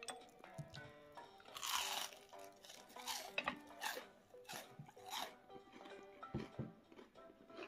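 Crisp deep-fried aralia-shoot and acacia-flower tempura being bitten and chewed: several crunches of fried batter, the longest and loudest about two seconds in, over background music.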